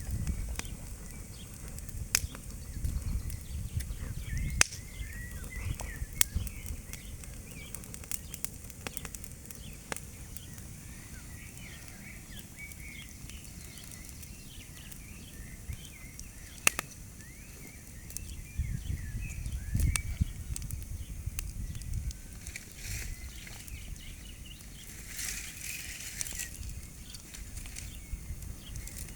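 Outdoor ambience at a leaf-and-branch bonfire: scattered sharp cracks and snaps from the burning fire, small birds chirping throughout, and wind rumbling on the microphone at times. A brief hissing rush comes near the end.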